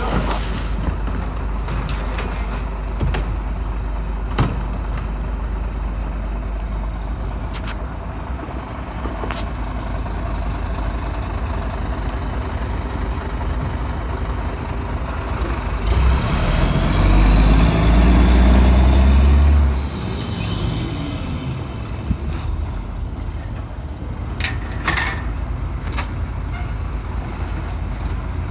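Mack MR rear-loader garbage truck's diesel engine idling, with trash cans knocking against the hopper now and then. Just past the middle, the engine revs up loudly for about four seconds as the McNeilus rear loader's hydraulic packer cycles, followed by a high squeal.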